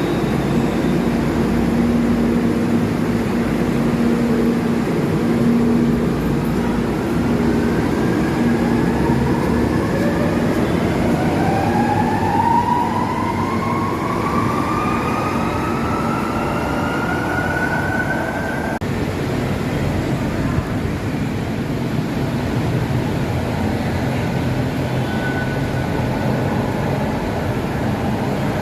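CKD Tatra RT8D5M light rail train running, with a steady rumble from its bogies on the track. For about ten seconds its traction motors whine higher and higher as the train picks up speed, and the whine cuts off abruptly about two-thirds of the way through.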